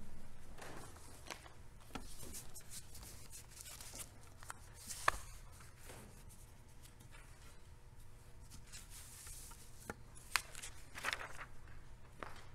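Faint rustling of pages and scattered light knocks and clicks from handling at a lectern, the sharpest about five seconds in and near the ten-second mark. A steady low hum runs underneath.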